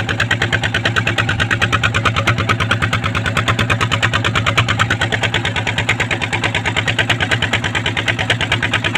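Boat engine running steadily, with a fast, even chugging beat.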